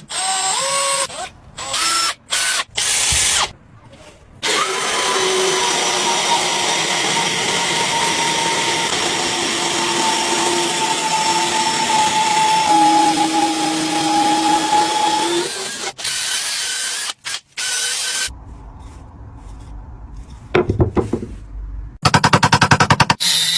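A power tool running on wood: a few short bursts, then one long steady run with a whine that dips slightly partway through, and a rapid buzzing near the end.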